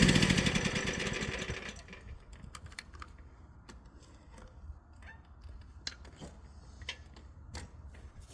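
Small engine of a Jansen mini excavator winding down after being switched off, its pitch falling as it dies out over about two seconds. Then a faint low hum with scattered light clicks.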